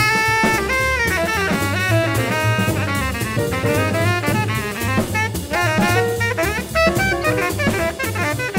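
Jazz tenor saxophone solo playing quick running lines of notes over a swinging rhythm section of string bass and drum kit.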